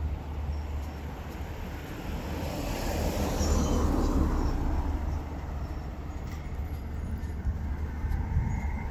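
A vehicle passing, its noise swelling to a peak about three and a half seconds in and fading away, over a steady low city rumble.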